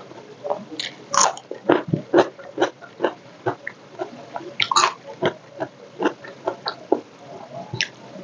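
Close-miked chewing and crunching of crisp food, a crispy fried omelette and cucumber, with irregular crunches about two or three a second.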